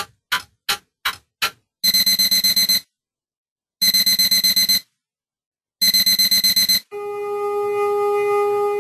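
Clock ticking about three times a second, then an alarm clock beeping in three one-second bursts of rapid beeps, a second apart. Near the end a steady school-bell tone starts ringing.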